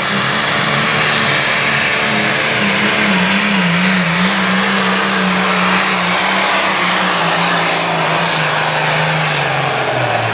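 A 640-cubic-inch Limited Pro Stock pulling tractor's turbocharged diesel engine runs loud and steady at full throttle while dragging the sled down the track. Its note sinks gradually lower through the second half of the run.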